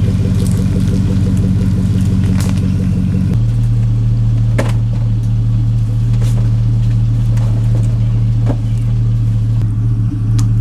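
Truck engine running steadily with a loud low hum that changes pitch about three and a half seconds in, with occasional light knocks and rattles.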